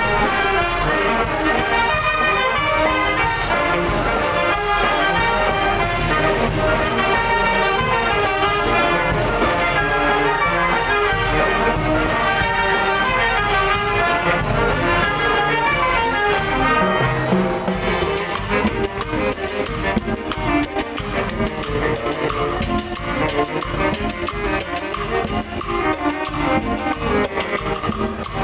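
Oaxacan brass band (banda de viento) playing, with trumpets and trombones carrying a loud, full passage. About seventeen seconds in, the full brass passage breaks off and a lighter, more rhythmic section follows.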